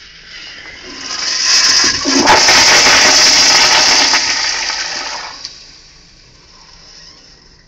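Crane Plumbing pressure-assist toilet flushing: a loud rush of water into the bowl that builds over about a second, holds for a few seconds, then dies away.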